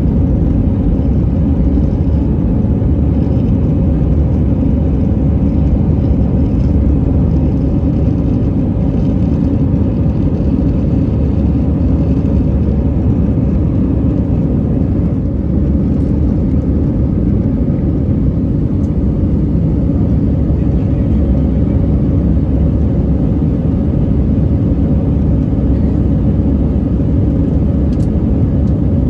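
Steady low engine and rushing-air noise heard from inside an Airbus A319's passenger cabin as the jet climbs just after takeoff.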